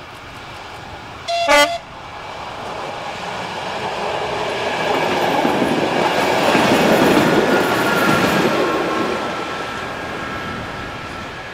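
Czech Railways class 854 diesel railcar giving a short horn blast about a second in, then passing close by with its trailer coach: the noise of its engine and wheels on the rails swells to a peak midway and fades as it goes away.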